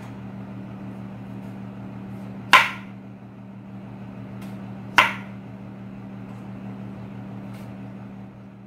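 Kitchen knife cutting through a potato and knocking sharply on a plastic cutting board twice, about two and a half seconds apart, with a few lighter taps, over a steady low hum.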